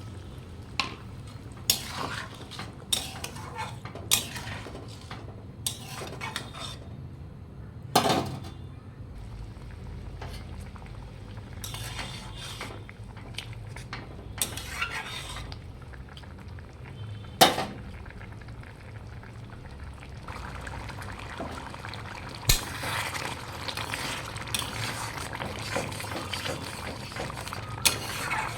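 A metal spoon stirring in a cooking pan, with irregular clinks and knocks against the pan every second or two. Cooking sizzle is underneath and grows thicker about two-thirds of the way through.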